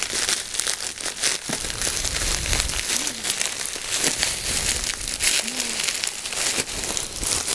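Plastic mailer bag and bubble wrap crinkling as they are cut open with scissors: a steady crackle of rustling plastic.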